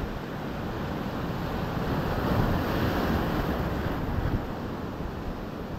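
Ocean surf breaking and washing in, building to its loudest about halfway through and then easing, with wind buffeting the microphone.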